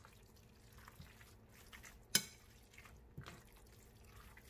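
A metal spoon tossing marinated beef and onion in a glass bowl: quiet wet stirring, with a sharp clink of the spoon against the glass about two seconds in and a fainter one about a second later.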